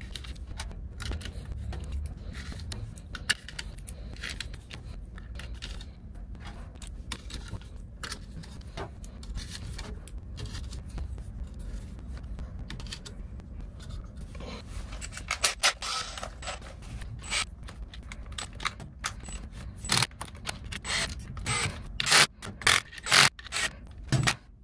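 Screws being worked out of a battery module's circuit board, with scraping and rubbing of tool on metal. From about fifteen seconds in there is a run of sharp clicks and knocks from small metal parts, over a low steady rumble.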